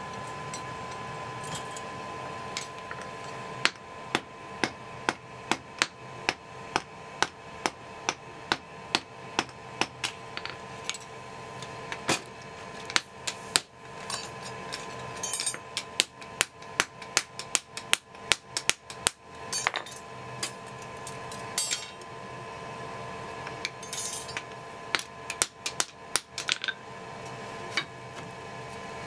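Blacksmith's hand hammer striking a steel kanna (Japanese plane) blade on an anvil. The blows are sharp and ringing, about two a second, beginning a few seconds in, with a few short pauses, over a steady hum.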